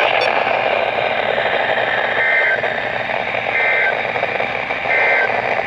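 NOAA Weather Radio receiver hissing with static, broken by three short two-tone digital data bursts about 1.4 seconds apart. These are the SAME code's end-of-message bursts that close an alert or test transmission.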